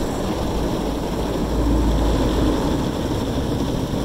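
Automatic car wash working over a minivan, heard from inside the cabin: a steady noise of water spray and wash brushes on the body and windows over a low rumble.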